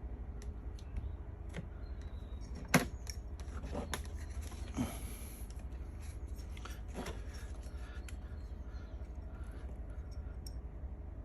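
Scattered light metallic clicks and scrapes of small hand tools and connector pins being worked, with one sharper click about three seconds in, over a steady low hum.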